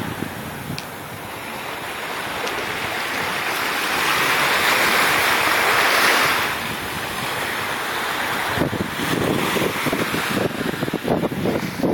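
Small waves washing in over the sand at the water's edge: a wash that swells to its loudest about five seconds in and then ebbs. In the last few seconds, gusts of wind buffet the phone's microphone.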